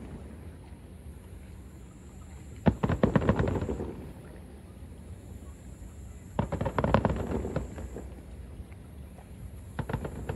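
Fireworks exploding: three bursts of rapid bangs and crackling, each lasting about a second, a few seconds apart.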